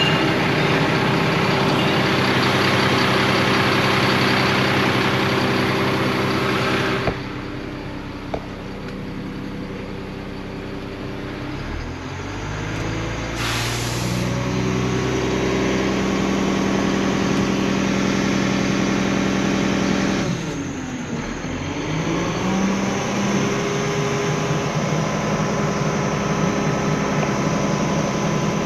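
Garbage truck's diesel engine running, heard first with much outside noise. After a thump about seven seconds in it turns muffled, as from inside the cab. About twelve seconds in the engine revs up as the body's hydraulic controls are worked, with a short hiss just after, and it dips and climbs again around twenty seconds in.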